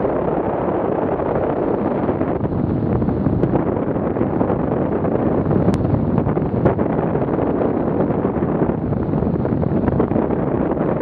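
Airflow rushing steadily over the microphone of a wing-mounted camera on a hang glider in flight, with a few faint ticks.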